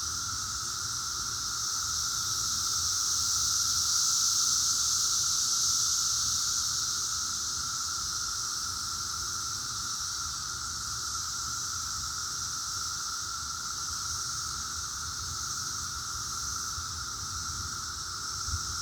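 Chorus of Brood X 17-year periodical cicadas: a loud, steady high-pitched drone with a second, lower steady tone beneath it, swelling slightly about four to six seconds in.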